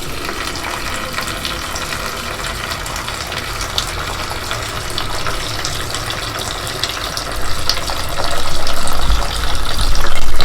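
Engine coolant pouring steadily out of a dirt bike's radiator drain with the radiator cap off, a continuous liquid gush that grows louder in the last couple of seconds.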